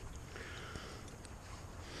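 Faint rustling of a climbing rope and its hardware being handled with gloved hands, with a soft breath through the nose about half a second in.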